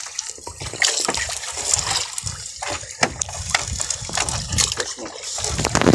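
Fishing net being hauled by hand out of the sea over a boat's side, with seawater streaming and splashing off the mesh and scattered knocks.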